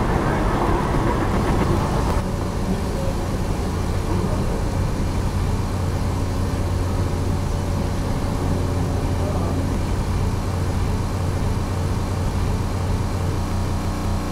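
Steady low rumble and hum of a stopped car's idling engine, heard from inside the cabin, with city street traffic around it.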